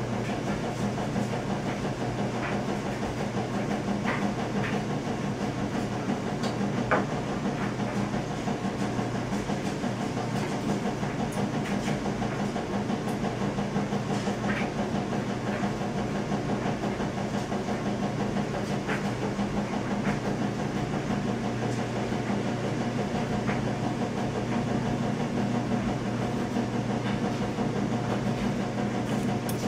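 A steady mechanical hum with hiss, unchanging throughout, with a few faint clicks scattered through it.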